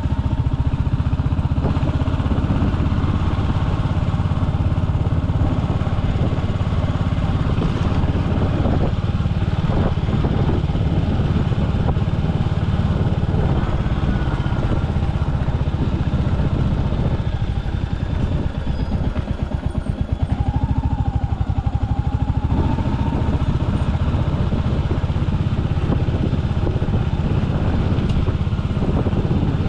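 Royal Enfield Hunter 350's single-cylinder engine running while being ridden. About two-thirds of the way through it drops briefly to slower, separate beats and a lower level, then picks up again.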